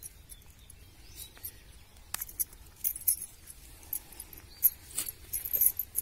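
Scattered light clicks and jingles of glass bangles and rustling of a nylon fishing net as hands work to free a small owl, coming in small clusters.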